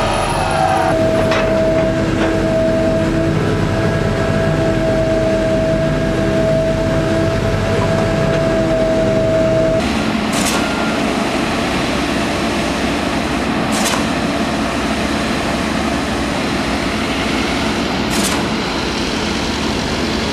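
Fundex F3500 CFA piling rig running, a loud steady machinery noise with a steady high whine through the first half. About ten seconds in the sound turns rougher, and three sharp metallic knocks come a few seconds apart.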